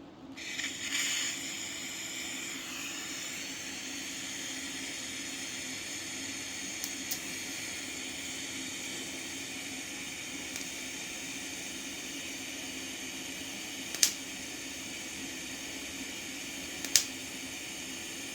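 TIG welding arc running steadily with a hiss and faint hum, struck about half a second in and held without filler rod, so it only melts the edges of the metal. Two sharp clicks come near the end.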